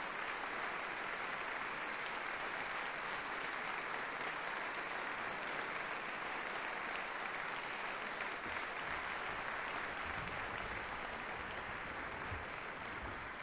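Large audience applauding steadily in a concert hall at the end of an orchestral performance.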